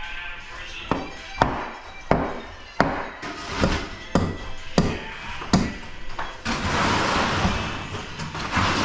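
Music with a series of sharp knocks, about one every two-thirds of a second, giving way to a longer rush of noise for the last two seconds or so.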